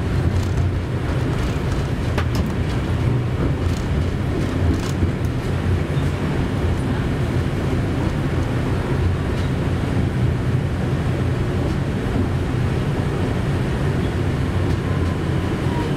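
KTM-31 (71-631) tram running along the track, heard from inside the driver's cab: a steady low rumble, with a few light clicks in the first several seconds.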